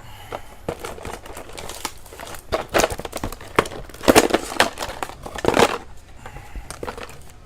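Plastic toy packaging crinkling and crackling as it is handled and pulled apart, with several louder bursts in the middle.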